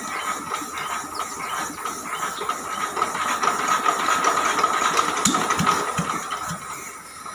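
Diesel engine of a welding generator being turned over with a flame-assisted start: it coughs and chugs a few times over a steady hiss, puffing smoke, but does not catch.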